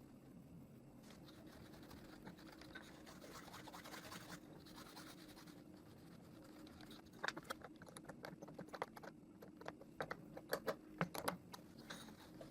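Faint rubbing and scraping, then for about four seconds a run of light, irregular clicks and taps from hand work on a hand-held power planer's knife setting.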